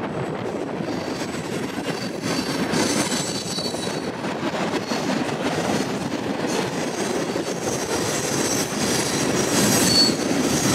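Freight train of tank and covered hopper cars rolling past: a steady rumble of steel wheels on rail, with a thin high wheel squeal that grows stronger near the end.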